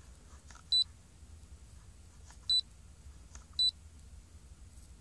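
Innova 3030 OBD2 code reader giving three short, high keypress beeps, irregularly spaced, each just after a faint button click, as its buttons are pressed to scroll the screen.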